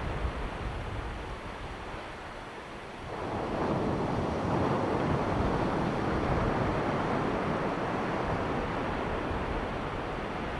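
Ocean surf on a beach: a quieter lull, then about three seconds in a wave breaks and its wash rushes in loudly, slowly easing off.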